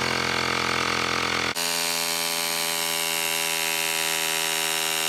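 Xiaomi 1S portable electric air compressor running as it inflates a scooter tyre, a steady, loud motor buzz. Its tone shifts abruptly about a second and a half in.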